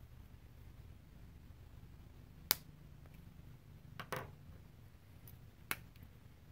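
Sharp plastic clicks of felt-tip markers being handled: a marker cap snapping on, a double click as the marker is set down on a wooden desk, and another click a little later as the next marker is picked up, over a low room hum.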